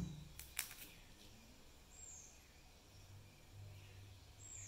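Near silence, with two light knocks of metal parts handled on a wooden table about half a second in, and a small bird chirping faintly twice, with short falling high notes.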